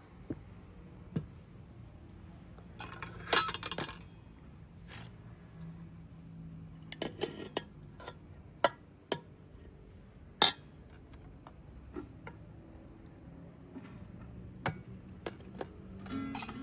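Dishes and kitchen utensils clinking and knocking now and then: a quick cluster of clinks about three seconds in, then single clinks every second or two.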